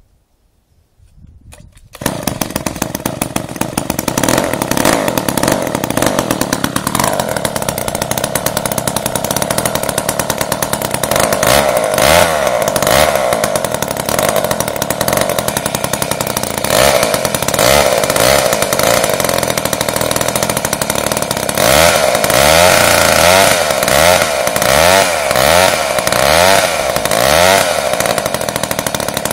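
JoBu Junior two-stroke chainsaw engine, a saw that had perhaps not run in 50 years, bursting into life about two seconds in and running loudly. In the second half the revs rise and fall again and again as the throttle is worked.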